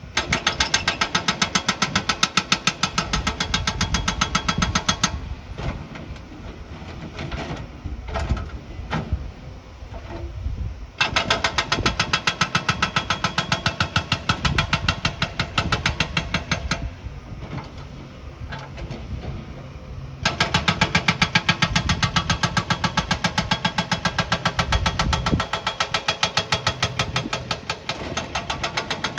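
Construction machinery running, with three bouts of fast, even pounding several seconds long that start and stop abruptly, and a quieter engine sound between them.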